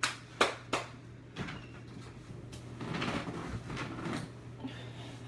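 Handling noise: three sharp knocks in the first second, then about two seconds of rustling, over a faint steady low hum.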